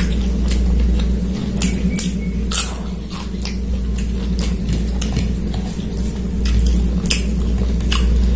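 Hand-eating sounds: fingers mixing rice and curry on a plate and mouth chewing, heard as scattered short clicks and smacks at irregular intervals, over a steady low hum.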